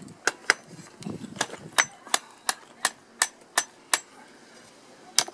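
Hand hammer striking a red-hot steel bar on a flat steel block used as an anvil, forging the hot metal: sharp metal-on-metal blows about three a second, stopping about four seconds in, then two more near the end.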